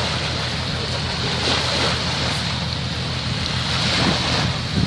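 Steady wind and water noise, with a low, even rumble underneath.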